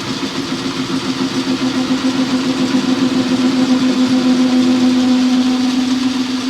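Metal lathe running and taking a single cutting pass on a wheel-stud sleeve: a steady mechanical hum with one strong tone that grows louder through the cut.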